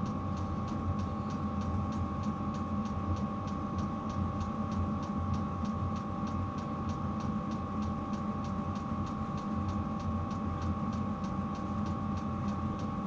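Diesel cabin heater running: a steady fan hum with a faint whine, and a regular light ticking about three times a second, typical of the heater's fuel pump.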